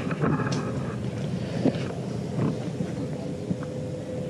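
Low wind and handling rumble on a handheld camera's microphone, with a few soft knocks and a faint steady hum underneath.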